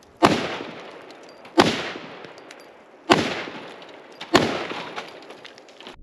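Four shots from a Big Horn Armory AR500, a semi-automatic AR-style rifle chambered in .500 Auto Max, fired about one and a half seconds apart. Each shot echoes away for about a second.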